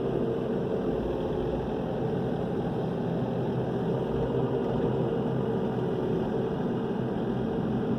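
Excavator's diesel engine running steadily, a constant hum with a fixed pitch.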